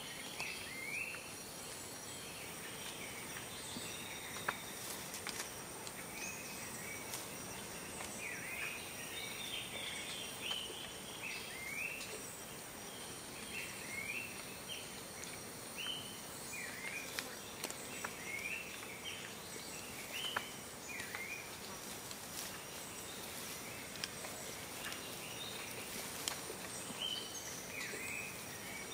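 Tropical forest ambience: insects hold several steady high-pitched tones while birds give many short, down-sweeping chirps again and again.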